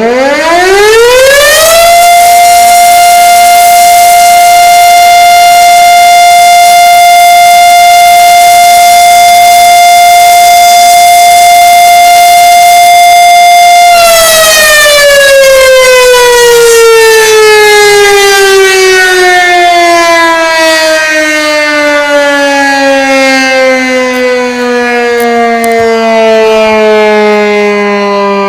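1942 Federal Electric Model 5 outdoor warning siren sounding its daily noon test. It winds up to full pitch in about two seconds and holds one steady, loud tone. About halfway through it begins a long, slow wind-down, its pitch sliding steadily lower.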